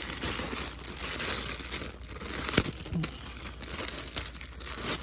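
Packaging crinkling and rustling as it is handled and unwrapped by hand, with a sharp click about halfway through.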